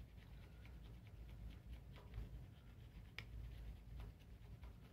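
Faint scratching and light ticks of a pointed metal tool marking a maple block, with one sharper tick about three seconds in.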